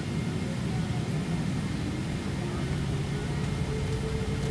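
Boeing 777-300ER's GE90 jet engines running with a steady low rumble, a tone slowly rising in pitch in the second half.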